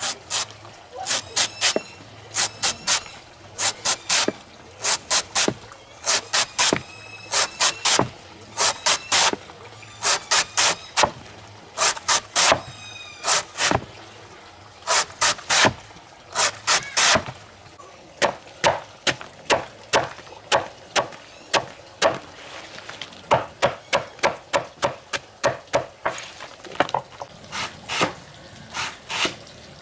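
A large knife chopping through a soft banana tree trunk onto a wooden chopping block: runs of sharp strokes, a few per second, with short pauses between runs. A few strokes leave a brief metallic ring from the blade.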